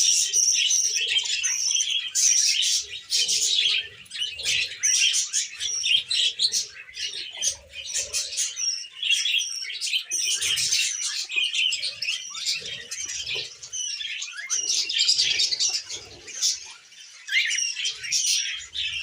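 Pet budgerigar chirping and chattering, a continuous run of short, high, rapid chirps and warbles.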